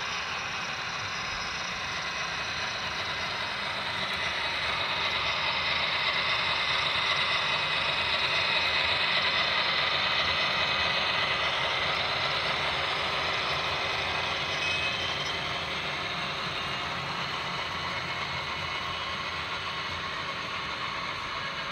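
Model train running along the track: the locomotives' motors and gears whir with a mechanical rattle. The whir grows louder as the locomotives pass close by, peaking near the middle, then fades a little as the tank cars roll past.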